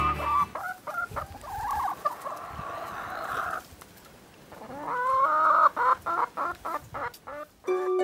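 New Hampshire hen clucking: a stretch of drawn-out calls, a pause about four seconds in, then more calls followed by a quick run of short clucks near the end.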